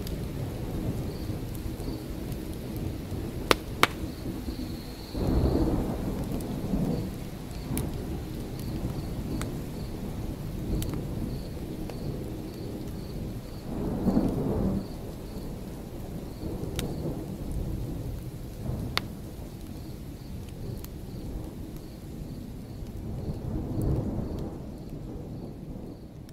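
Thunderstorm ambience: steady rain with three low rolls of thunder, a few sharp crackles, and a faint high chirp repeating about twice a second, fading out near the end.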